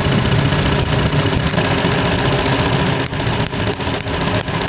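Hyundai Elantra engine idling roughly, with a series of irregular sharp ticks about three seconds in. The roughness is a misfire from a leaking ignition coil, which the mechanic believes lets the spark jump to the metal instead of reaching the spark plug.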